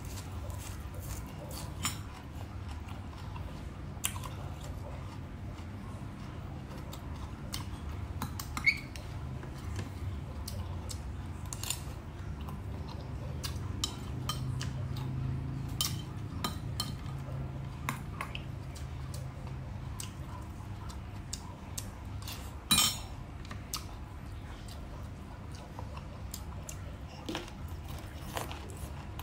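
Close-miked eating: crisp raw water chive stems being bitten and chewed, with scattered clicks and an occasional clink of a metal spoon against a ceramic bowl. The sharpest click comes about three-quarters of the way in. A low steady hum runs underneath.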